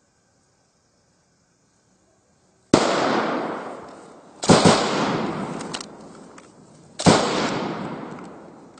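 Gunfire opening an ambush: after near silence, three loud shots about three, four and a half and seven seconds in, each followed by a long echo dying away.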